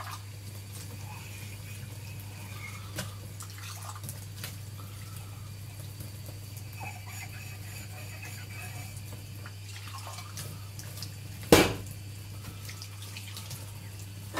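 Washing dishes by hand in a kitchen sink: faint water splashing with small knocks of crockery, and one sharp clatter about two-thirds of the way through. A steady low hum sits underneath.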